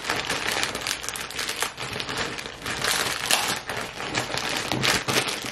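Clear plastic packaging from pillow inserts crinkling and crackling as hands pull it open and handle it, in quick irregular rustles.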